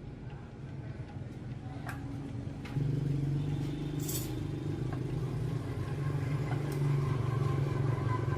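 An electric motor running with a steady low hum that steps up in level about three seconds in, with scattered light clicks and a short hiss about four seconds in.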